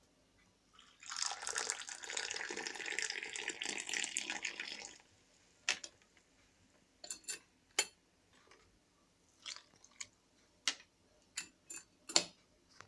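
Liquid pouring steadily for about four seconds, followed by a string of light clicks and knocks.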